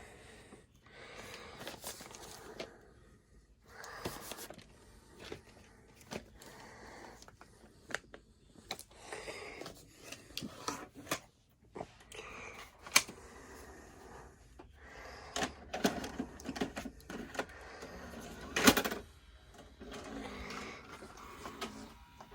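Scattered mechanical clicks and clacks with short rustling noises between them, the sharpest click a little over three-quarters of the way through.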